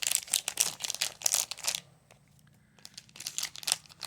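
Plastic toy packaging crinkling and tearing as it is opened by hand, in two spells: about the first two seconds, then again briefly about three seconds in.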